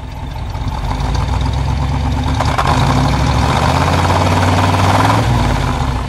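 1956 Ford Thunderbird's 312 cubic-inch Y-block V8 revved, heard at the dual exhaust's outlet in the rear bumper: the engine note rises about a second in, is held for several seconds, and drops back near the end.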